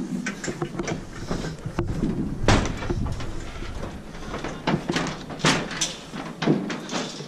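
Footsteps knocking and clattering on a floating plastic pontoon dock and then on a metal gangway, an irregular run of hollow impacts.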